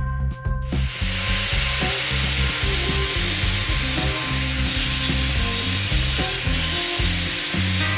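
Angle grinder with a thin cutting disc sawing a slot into a wooden cylinder, a steady harsh whine and rasp of the disc in the wood starting about a second in. Background music with a bass line plays underneath.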